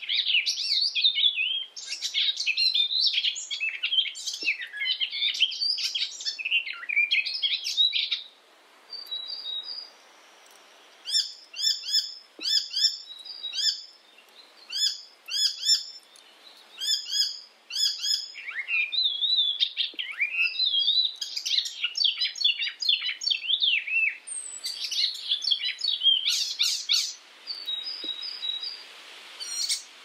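Icterine warbler singing: fast, varied phrases of high whistles and chatter. In the middle comes a run of short notes repeated over and over, then the varied song returns.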